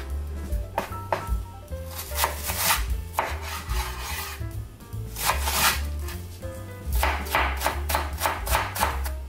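Kitchen knife chopping on a cutting board, first through shiitake mushrooms and then a long white leek. Sharp repeated strokes come in a quick run near the end, with a few longer drawn-out cutting sounds around two and five seconds in, over background jazz music.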